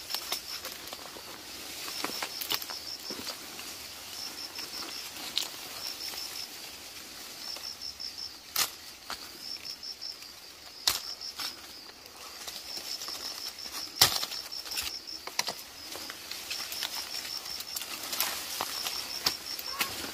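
Short series of rapid high chirps repeating every second or two, with a few sharp clicks now and then.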